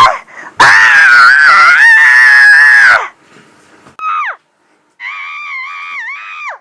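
A cartoon character's high-pitched voice screaming: one long, loud scream of about two and a half seconds, a short falling cry at about four seconds, then a quieter held wail near the end that drops off.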